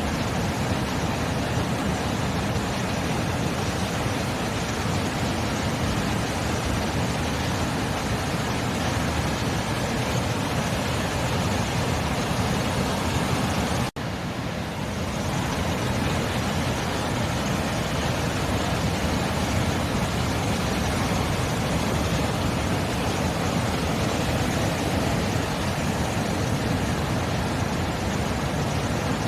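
Steady roar of sea surf, an even wash of noise without distinct wave crashes, cutting out for an instant about halfway through.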